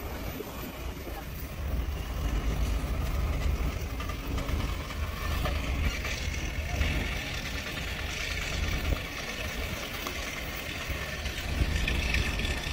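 Diesel engine of a multi-axle modular heavy-load transporter running steadily with a low rumble as the transporter rolls slowly onto a steel loading ramp.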